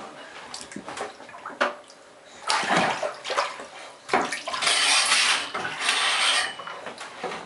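A baby splashing in bathwater, slapping the surface with his hands in irregular splashes. The biggest splashes come in two stretches, about two and a half seconds in and again from about four and a half to six and a half seconds.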